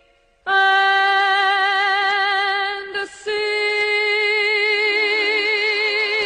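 A woman sings the long held closing notes of a 1940s ballad: after a brief hush, one sustained note, then a step to a slightly higher note, held with a wide vibrato.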